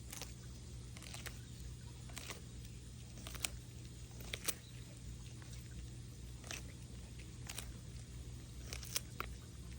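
A tortoise biting and chewing food: scattered sharp crunching snaps at an uneven pace, the loudest a little past three seconds, at about four and a half and near nine seconds in, over a low steady hum.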